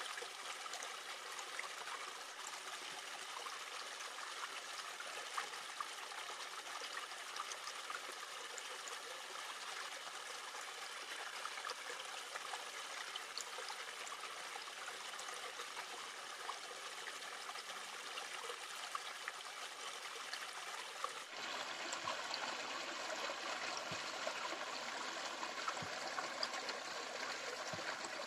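Steady rush of a river flowing over rocks, a little louder after a cut about three-quarters of the way through.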